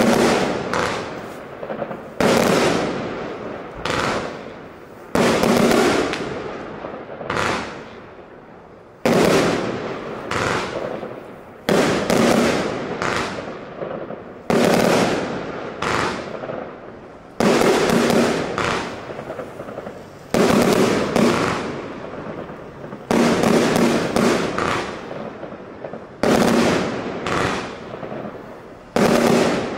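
A 75-shot, 25 mm consumer fireworks cake firing its shots one after another with titanium-gold tails and bursts. Each shot gives a sharp bang that fades away over about a second, at a pace of roughly one a second.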